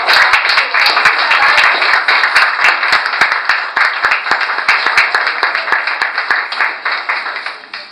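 Small audience applauding: many hands clapping densely, tapering off near the end.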